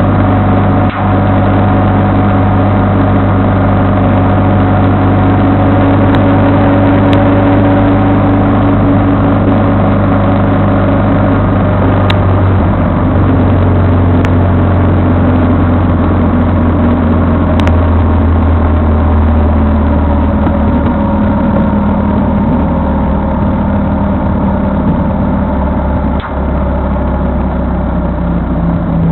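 Vehicle engine running steadily under way, its pitch stepping lower a couple of times and rising again near the end as speed changes, with a few faint ticks over it.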